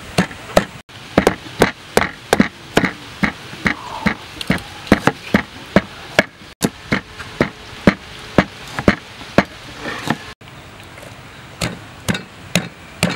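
Rhythmic knocking of a wooden pestle pounding chili paste in a wooden mortar, mixed with a cleaver chopping on a plastic cutting board, about two to three strokes a second. The strokes pause briefly after about ten seconds, then the pounding resumes.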